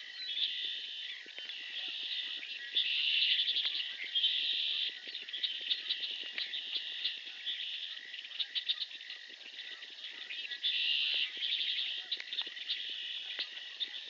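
A dense chorus of high trilling, chattering animal calls from the marsh, swelling and fading in bursts of about a second, with a steady faint high tone beneath.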